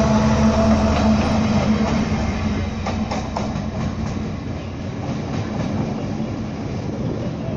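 Class 70 diesel-electric locomotive's V16 engine passing close with a steady drone that fades as the engine draws away. A run of sharp wheel clicks over rail joints comes about three to four seconds in.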